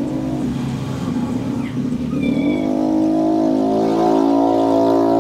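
Yamaha R25's 250 cc parallel-twin engine running, its revs rising about halfway through and then holding steady.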